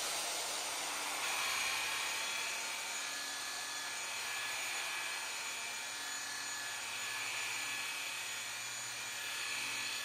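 Corded rotary polisher running steadily with a motor whine, a soft red foam pad buffing a final glaze onto glossy clear-coated sheet metal.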